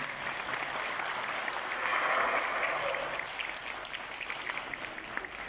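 Audience applauding, the clapping at its fullest about two seconds in and then thinning out.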